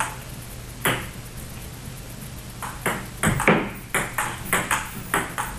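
Table tennis rally: a plastic 40+ ball clicking off the table and the paddles. One knock comes just under a second in, then a quick string of about ten clicks from about two and a half seconds in.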